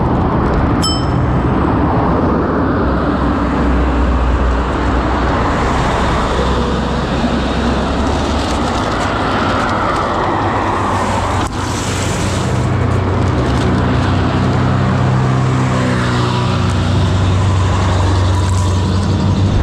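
Road traffic passing close by, heard from an electric scooter riding along a roadside sidewalk, over a steady rush of wind on the microphone. Near the end a truck's engine grows louder as it draws alongside.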